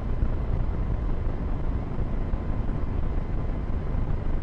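Wind rumbling on the microphone, a steady low rush with small gusts.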